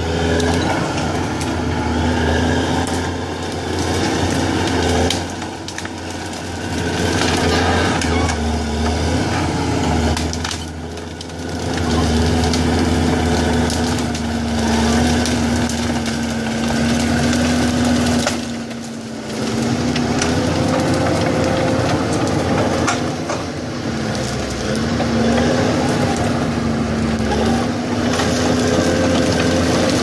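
New Holland D140 crawler dozer's diesel engine running under load as the dozer pushes over pine trees, its note sagging and recovering a few times. Wood cracks and snaps over the engine.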